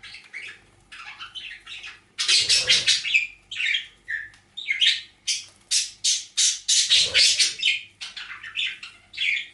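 Pet birds chattering and squawking in harsh, rapidly pulsed bursts: a pair's courtship clattering and chatter. The loudest bursts come about two seconds in and again through the second half.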